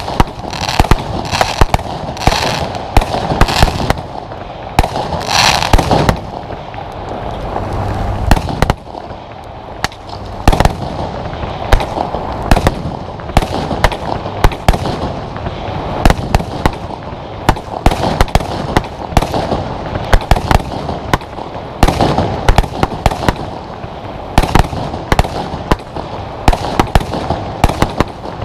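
Compound firework cakes (Verbundfeuerwerk) firing: a continuous barrage of sharp bangs, several a second, over steady crackling.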